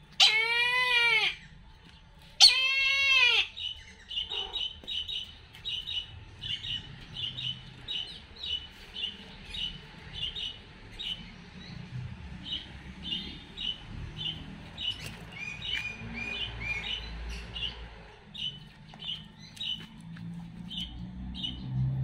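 Brahminy kite giving two loud, drawn-out calls about two seconds apart, each arching up then down in pitch. A long run of quieter, short high chirps follows, repeating about twice a second.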